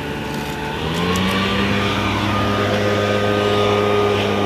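An engine running, its pitch rising about a second in and then holding steady at a higher speed.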